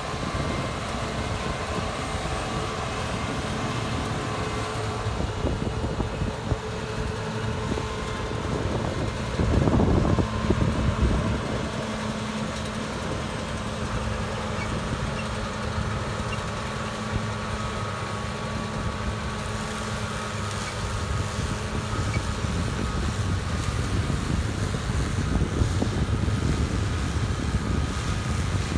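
1992 John Deere 9400 combine running steadily during harvest, a continuous machine hum, with a louder surge about ten seconds in.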